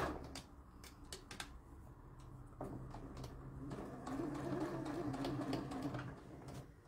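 Scattered light clicks and taps at irregular times as fabric is handled and adjusted under a sewing machine's needle, with the machine not stitching, over a faint steady low hum.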